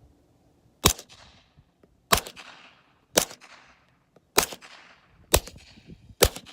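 Six suppressed 9mm pistol shots, fired roughly one a second, each a sharp crack with a short fading tail.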